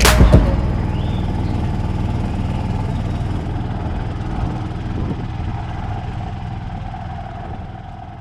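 Background music cuts off about half a second in, then an engine runs with a steady low hum that slowly fades.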